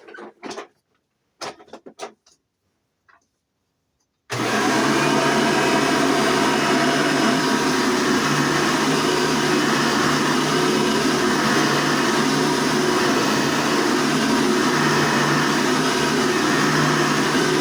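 A vacuum cleaner motor dying away at the start, a few clicks and knocks, then about four seconds in a vacuum cleaner switched on, coming straight up to full speed and running steadily with an even hum.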